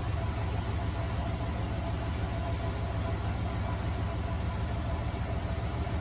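Front-loading washing machine running with its drum turning: a steady low hum with a rapid flutter and a faint, even higher whine over it.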